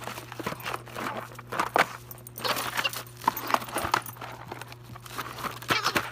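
Dog chewing and ripping at a cardboard toy box: irregular crunching, tearing and knocking of cardboard.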